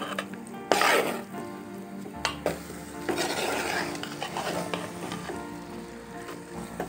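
A spoon stirring masala-coated chicken pieces in a hot pan, scraping the pan in uneven strokes while the masala sizzles. The loudest scrape comes about a second in.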